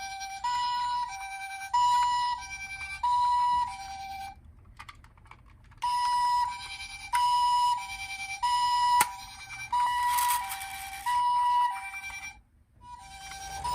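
Toy ambulance minicar's electronic two-tone "pee-po" siren, alternating a high and a low note about every half second. It cuts out about four seconds in and starts again a second and a half later, with a sharp click and a brief hiss partway through.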